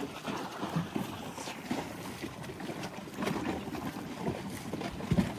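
Wind buffeting the microphone by the water, an uneven rushing noise, with a low thump near the end.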